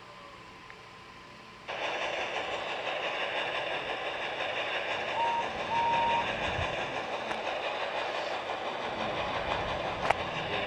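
A train running, its steady rushing noise starting abruptly about two seconds in. Two short, high-pitched toots come near the middle, and a sharp click sounds near the end.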